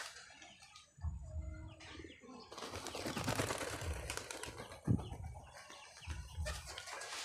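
Pigeons flapping their wings as they are let out of a loft, thickest from about two and a half to four and a half seconds in, with a single sharp knock about five seconds in.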